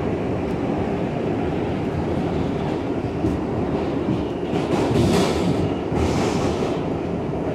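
R62A subway car running in the tunnel: a steady rumble of wheels on rail, with a harsher hiss from the wheels rising about four and a half seconds in and again around six seconds.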